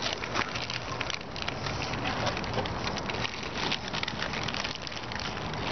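Foil Xxtra Flamin' Hot Cheetos bags crinkling and rustling as hands reach into them for chips, a dense run of small crackles throughout.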